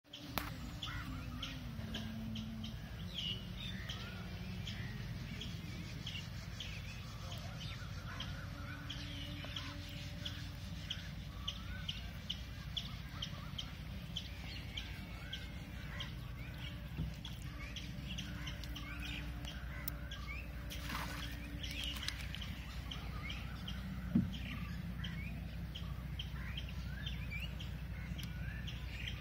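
Many small birds chirping in quick, short calls over a steady low rumble, with a single knock about three-quarters of the way through.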